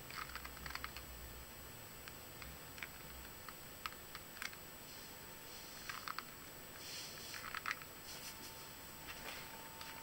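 Faint, scattered light clicks and ticks at an irregular pace. A faint steady high tone comes in about seven seconds in.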